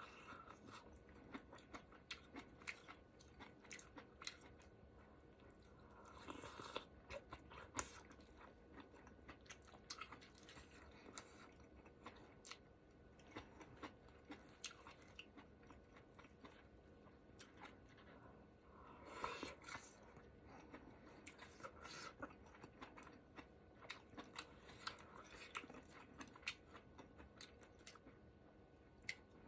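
A person chewing and biting food from a ramen hot pot: many small wet mouth clicks and some crunching, with two short denser, noisier stretches.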